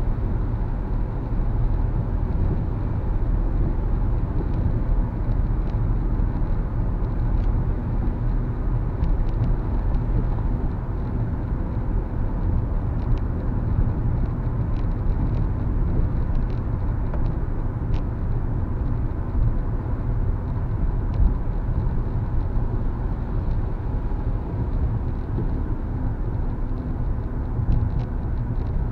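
Car cabin noise while driving on a wet highway: a steady low rumble of the car and its tyres on rain-soaked pavement. Scattered faint ticks of raindrops hitting the windshield.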